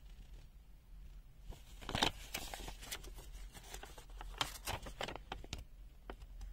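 Thin paper instruction sheet rustling and crackling as it is handled and moved, louder about two seconds in and again between about four and a half and five and a half seconds.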